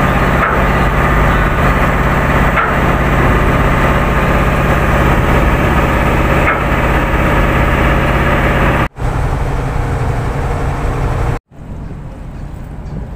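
A boat's diesel engine running steadily at close range, a loud, even drone. The sound cuts off abruptly about nine seconds in, and again about eleven and a half seconds in, after which a much quieter engine drone continues.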